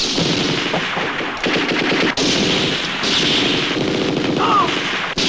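Machine guns firing long, rapid bursts of automatic fire, broken sharply a couple of times.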